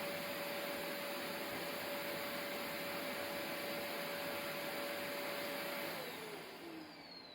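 Household vacuum cleaner running with a steady rushing whine, then switched off about six seconds in, its motor note falling as it spins down.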